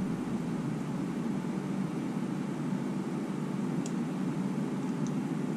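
Steady low mechanical hum with a faint hiss, with two faint light clicks about four and five seconds in.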